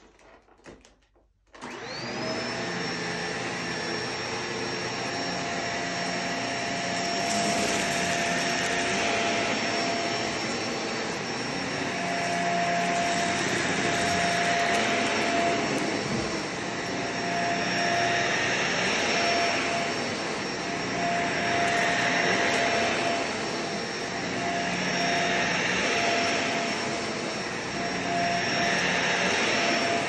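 Shark Navigator upright vacuum cleaner switched on after a few faint clicks, its motor whine rising quickly to a steady pitch, then running while pushed back and forth over carpet, the sound swelling and easing with each stroke.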